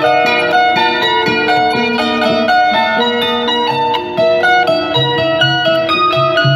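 Instrumental background music of quick plucked-string notes playing a steady, running melody.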